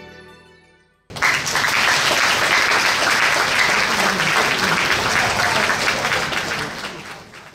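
Stage music fading out. About a second in, audience applause starts suddenly and runs loud and steady, fading away near the end.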